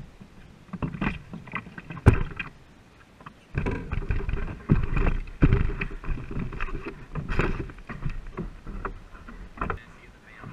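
Racing canoe being paddled: irregular splashing paddle strokes and water washing along the hull, with a sharp knock about two seconds in and busier stroking from about three and a half seconds on.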